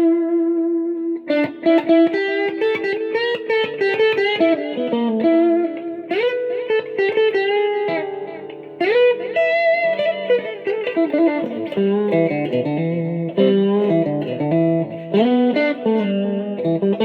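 1970s Japanese-made Cortley copy of a Fender Stratocaster, played clean on its bridge pickup with no gain or pedals: very trebly strummed chords and ringing single notes.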